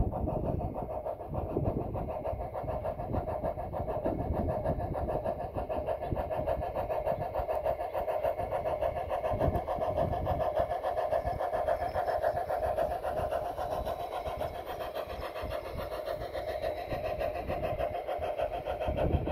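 Large-scale model Climax geared steam locomotive running on garden track, its electric drive and gears making a steady whirring with a fast, fine flutter as the train rolls past.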